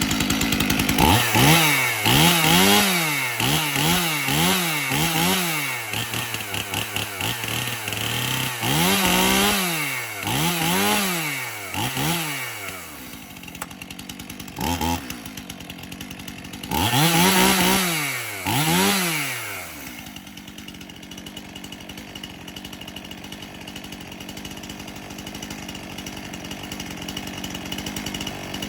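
Stihl MS 291 Farm Boss two-stroke chainsaw revved repeatedly from idle, its pitch rising and falling in a string of quick blips in bunches, then settling to a steady idle for the last several seconds.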